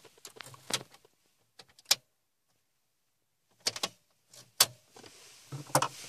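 Clicks and knocks of a key in a 2006 Mini Cooper's ignition being turned to the accessory position and pulled out, with the key fob clattering. The clicks come in small clusters, the sharpest about four and a half seconds in, and a soft rustle of handling follows near the end.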